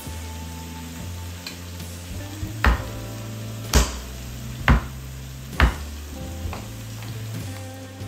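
Four sharp thumps about a second apart: the flat of a chef's knife struck hard to crush garlic cloves on a wooden cutting board.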